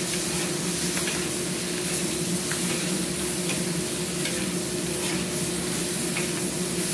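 Prawns and vegetables sizzling in a hot wok while a metal wok spatula stirs and tosses them, with light scrapes of the spatula against the wok, over a steady low hum.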